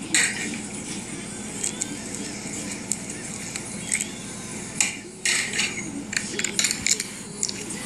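Foam-bead slime being squeezed and pulled apart by hand, giving off irregular sharp crackles, clicks and pops.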